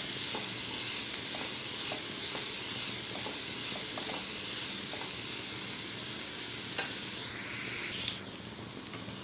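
Chopped vegetables (cabbage, carrot, capsicum, beans) sizzling as they are sautéed in hot oil in a nonstick pan, with a steady hiss and light scattered ticks from the stirring; the sizzle gets a little quieter about eight seconds in.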